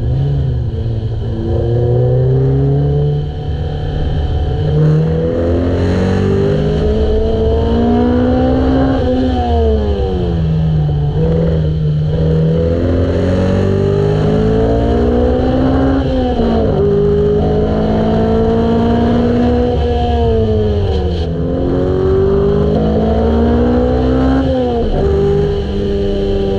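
Car engine heard onboard at track pace, its pitch climbing under throttle and dropping sharply every few seconds with gear changes and lifting for corners.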